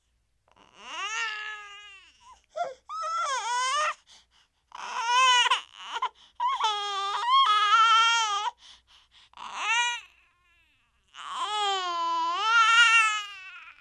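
Infant crying in a series of short whimpering cries, each a pitched wail that bends up and down, broken by brief pauses for breath.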